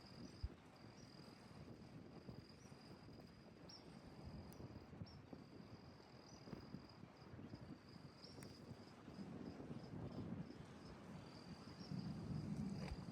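Faint, steady high-pitched insect trill, cricket-like, broken by brief gaps, over a low rumbling background that swells twice, the second time near the end.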